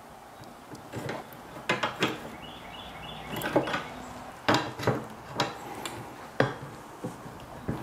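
Tongue-and-groove pliers bending a steel mower-handlebar bracket on a wooden workbench: irregular metal clinks and knocks as the pliers grip and the steel taps the bench.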